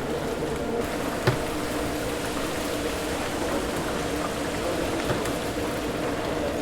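Chicken pieces deep-frying in a vat of hot oil, a steady bubbling sizzle with a low hum beneath it. A single sharp knock sounds about a second in.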